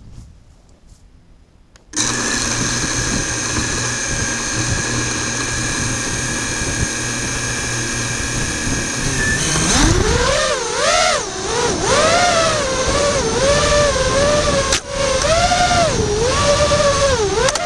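FPV quadcopter's electric motors start up about two seconds in with a sudden, steady high whine. From about ten seconds in, in flight, the whine rises and falls continually with the throttle.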